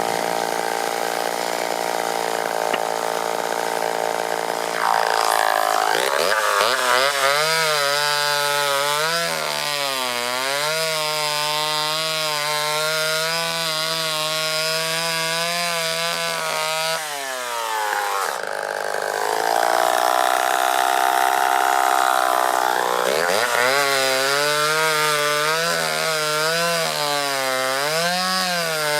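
Homelite Super XL Automatic two-stroke chainsaw running at full throttle, then dropping in pitch and wavering as the chain bites into a log, about five seconds in. Near the middle it eases off and revs freely again, then settles into a second wavering cut near the end.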